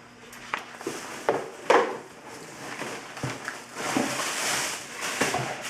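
A few knocks and clicks, the loudest about a second and a half in, then a rustling noise near the end: a car side-mirror assembly being handled.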